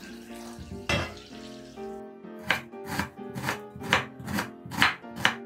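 Knife chopping on a cutting board, a steady run of quick strokes about four a second starting about two seconds in, over soft background music.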